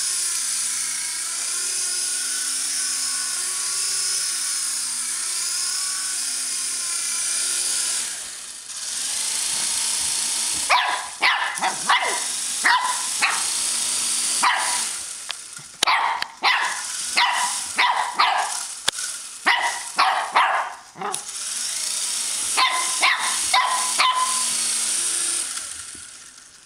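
A small remote-control toy helicopter's motor and rotor whine steadily, the pitch wavering a little with the throttle. From about ten seconds in, a Shih Tzu puppy barks repeatedly in quick runs of short barks, stopping near the end.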